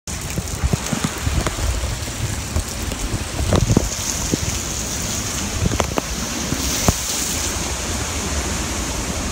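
Hurricane wind and heavy rain: a steady rain hiss over gusts that buffet the microphone in low rumbles and a few sharp thumps, strongest about three and a half seconds in.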